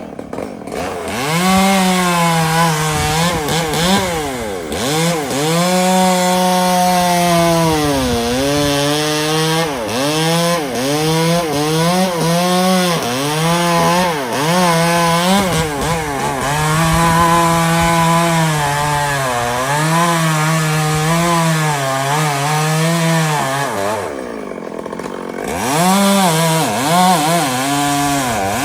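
Chainsaw at high revs cutting wood, its pitch sagging again and again as the chain bogs under load and then recovering. Near the end the revs drop away briefly before it is throttled back up.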